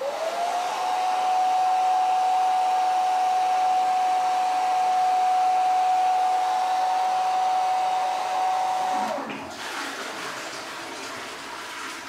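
Handheld hair dryer switched on: its motor winds up into a steady high whine over a rush of air. About nine seconds in, the whine falls away and the sound drops to a quieter hiss.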